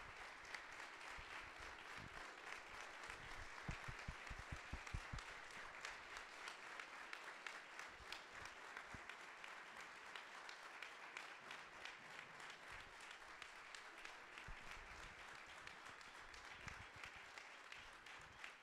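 An audience applauding steadily for a long while, with a few low knocks about four to five seconds in.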